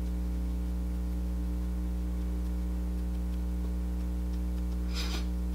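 Steady electrical mains hum with a low buzz, over faint soft taps of a makeup sponge dabbing foundation on skin; a brief rustle comes near the end.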